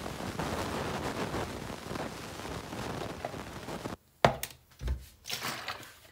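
Kitchen handling noise: about four seconds of continuous scraping and rustling that stops abruptly, then a few sharp knocks and one dull thump as the yogurt spoon and bowl are handled and set down on the countertop.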